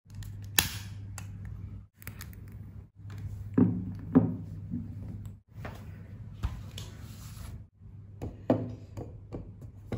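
Desk handling sounds in short clips over a steady low hum, cutting out briefly between clips: a sharp click just after the start as a long lighter is worked at a glass jar candle, then several knocks as the glass candle jar and other objects are set down on the desk.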